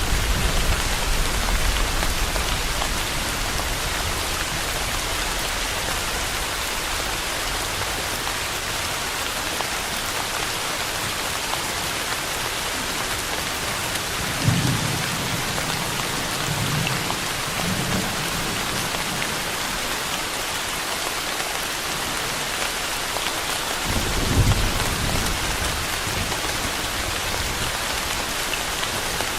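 Steady rain falling, an even hiss. Low rumbles of thunder fade out at the start, come again about halfway through, and once more about three-quarters of the way in.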